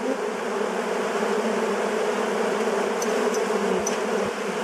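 Many honeybees buzzing together around a beekeeper, a steady hum with no breaks.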